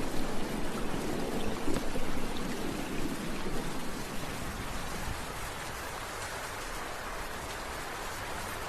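Steady rain pattering down, with the low rumble of a thunderclap dying away over the first few seconds. After that the rain runs on evenly.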